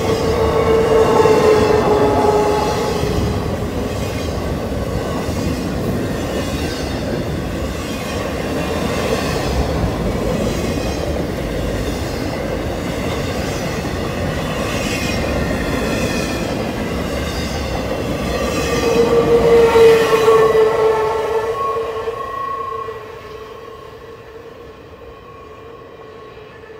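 Freight cars of an intermodal train rolling past on the rails, a steady rumble and rattle of wheels. Steady squealing tones rise twice, near the start and again about three-quarters through. Near the end the sound drops away as the last cars go by.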